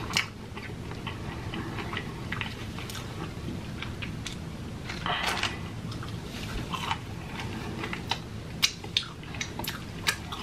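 A person eating a small piece of fried chicken: chewing with wet mouth clicks and lip smacks, with sharper smacks in the last couple of seconds as he sucks his fingers.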